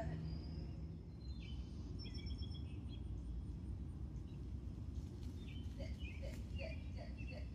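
Outdoor backyard ambience: a steady low background hum with birds chirping, a few high calls a second or so in, then a quick run of short repeated calls near the end.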